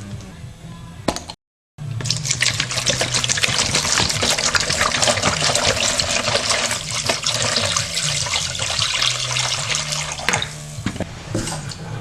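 Distilled white vinegar being poured into a container: a steady splashing pour that starts about two seconds in and stops about ten seconds in.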